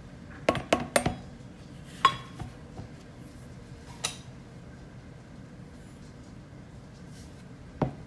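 A stainless steel measuring cup clinking and knocking as it is handled and set down on a counter. There is a quick run of taps about half a second to a second in, a ringing clink at about two seconds and another knock at about four. Near the end a plastic mixing bowl knocks once on the counter.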